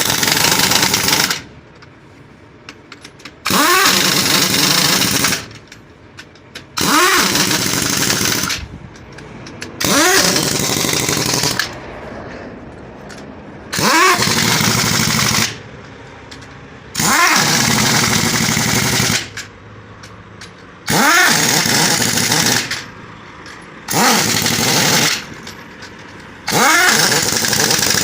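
Pneumatic impact wrench working a truck wheel's lug nuts: about nine bursts, each 1.5 to 2 seconds long and about three seconds apart. Each burst starts with a rising whine as the tool spins up, then hammers.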